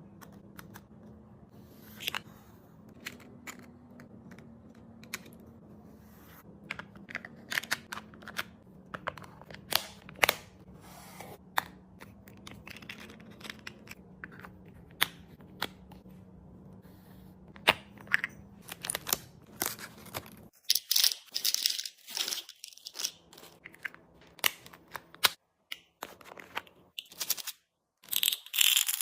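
Plastic packaging and containers being handled in a fridge restock: sharp clicks and taps over a low steady hum, then from about two-thirds in, louder bursts of crinkling and tearing of wrappers.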